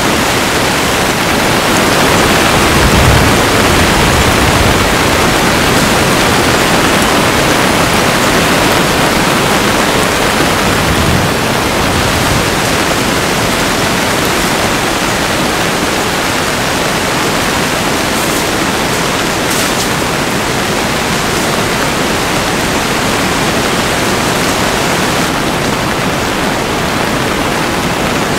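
Heavy rain pouring down in a dense, steady hiss.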